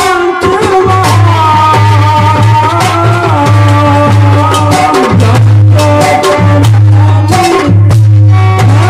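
Hindi devotional bhajan music: a melody over drum strokes and a steady deep bass note.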